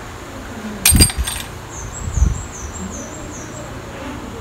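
Metal engine parts clinking and knocking as they are handled by hand, with one sharp ringing metallic clink about a second in and a few duller knocks after it.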